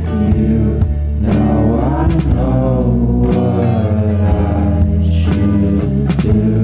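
Background music: a song with a singing voice over bass and a steady beat.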